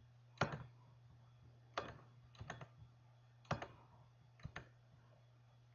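Computer mouse clicking: seven sharp clicks at irregular spacing, two of them in quick pairs, as grid areas on the map are marked walkable. A steady low hum runs underneath.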